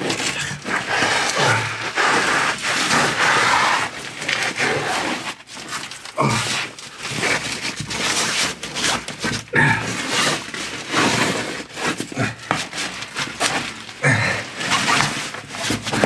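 Clothing rustling and boots scraping and knocking on concrete walls and iron rungs as a person climbs down a narrow concrete shaft, a dense run of crackles, scrapes and short knocks.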